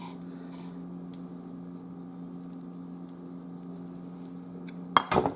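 Steady low hum with a few faint ticks, then near the end a short burst of a spoon clinking and scraping in a bowl as the salsa is mixed.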